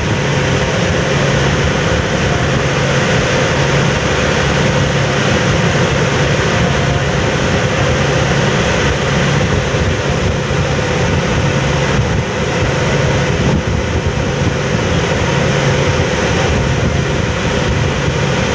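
Ferry engines running steadily with a low hum, over the rush of the propeller wash churning the water astern.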